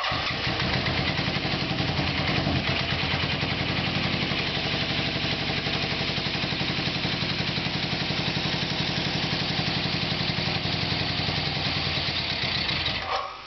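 Denver's custom chopper's motorcycle engine running steadily just after catching, then dying away near the end as it burns the last of the fuel left in the carburettors.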